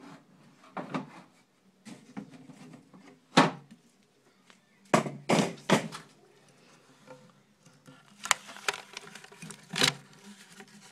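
Irregular knocks and thumps of hands and phone handling around a glass reptile tank, about ten in all, with the loudest about three and a half seconds in and a quick cluster of three around five to six seconds in.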